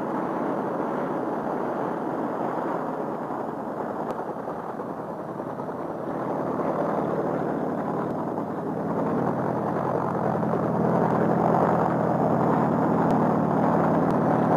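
Helicopter engine and rotor running steadily in flight, a muffled hum that grows louder about ten seconds in.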